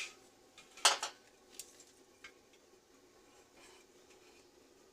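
A sharp metallic clink about a second in, followed by two faint ticks, as pieces of metal knock together.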